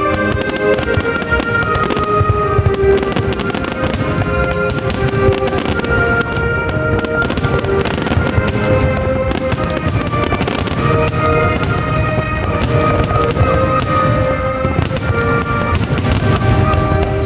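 Fireworks display: dense, continuous low booms of shells bursting with many sharp crackles and pops on top, over loud accompanying music with long held notes.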